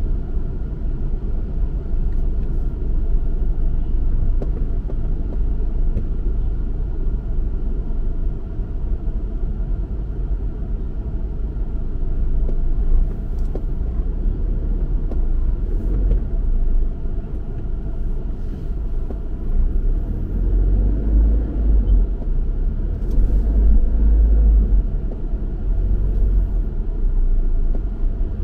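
Car driving along: a steady low rumble of road and engine noise, growing heavier about two-thirds of the way through.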